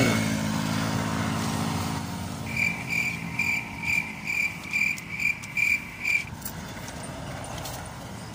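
Highway traffic: a vehicle passes close by at the start, its engine pitch dropping as it goes, then steady road rumble. From about two and a half seconds in, a high chirp repeats evenly about twice a second for nearly four seconds, then stops.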